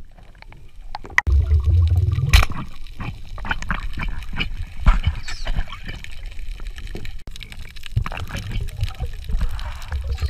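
Underwater water noise picked up by a diver's camera: a low rumble of moving water starting about a second in, with bubbling and many scattered clicks and knocks.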